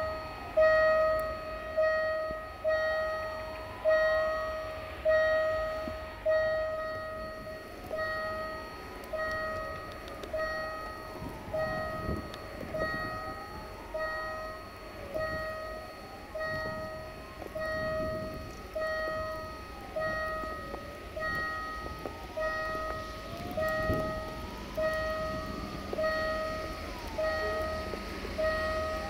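Level-crossing warning bell ringing steadily, about one strike a second, each ring fading before the next, sounding as a train approaches the crossing.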